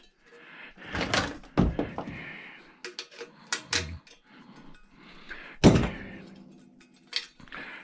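Irregular knocks and metallic clanks as a microwave magnetron is worked apart to free its ring magnets. The loudest knock comes about five and a half seconds in, followed by a short ringing.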